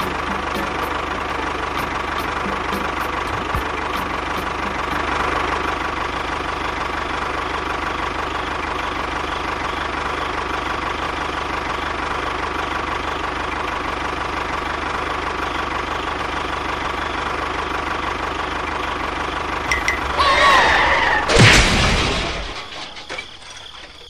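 A small motor running steadily with a held whine, most likely the mini tractor's motor. Near the end there is a short, louder burst with wavering pitch, and then the running sound dies away.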